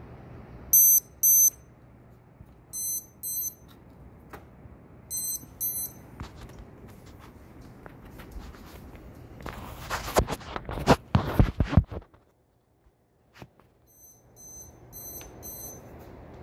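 AcuRite lightning detector beeping in quick pairs, several times; each pair signals a lightning strike within 15 miles. About ten seconds in there are two seconds of loud rustling and knocks close to the microphone.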